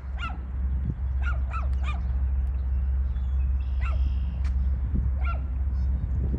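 Short bird calls, about six in all, three in quick succession about a second and a half in, over a steady low rumble.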